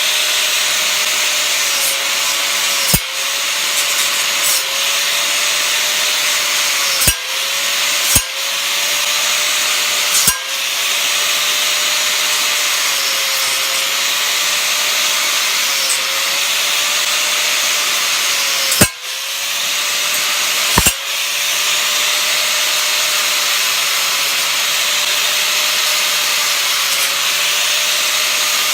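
Hitachi 4.5-inch angle grinder with a cutting wheel cutting through a ceiling fan motor's copper windings: a steady whine that sags briefly each time the wheel bites, over a harsh grinding hiss. Several sharp knocks where the wheel catches, loudest a little before the 19-second mark.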